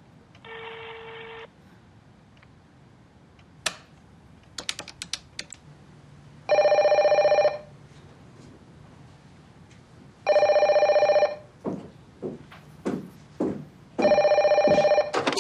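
A telephone ringing three times, each ring a loud warbling trill about a second long, a few seconds apart. A short quieter tone and a run of light clicks come before the rings, and a few knocks fall between them.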